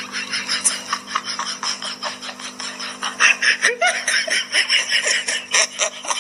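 Laughter in quick repeated bursts, over a steady low hum.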